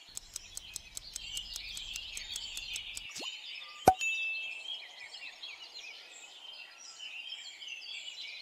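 Rapid countdown-timer ticking, about six ticks a second, over a bed of bird chirping. The ticking stops after about three seconds, and a short falling swoosh is followed by a sharp pop with a brief ringing tone as the answer is revealed.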